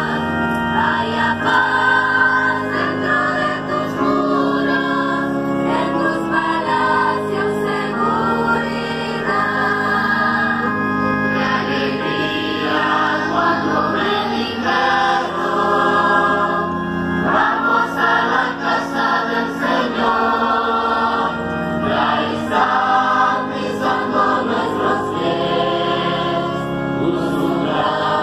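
Choir singing a hymn for the entrance procession of a Catholic Mass, with held notes changing every second or so.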